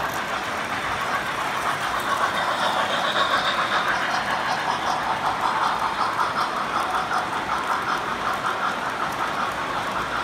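O-gauge model trains running around the layout's track, wheels clicking rapidly and rhythmically over the rail joints with a steady rolling rumble. It grows louder about two seconds in as the cars pass close by.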